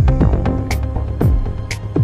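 Electronic music with a steady beat: a deep kick drum alternating with a bright clap-like hit, one beat about every half second, over a sustained bass and pad.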